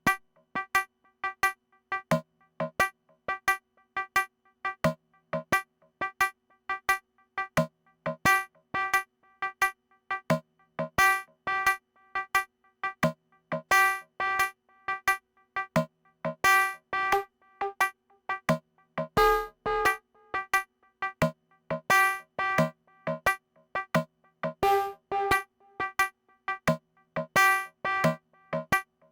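Modular synthesizer playing a sequenced pattern of short, bell-like FM notes, about two to three a second, some accented louder, with a short ringing tail from delay and spring reverb.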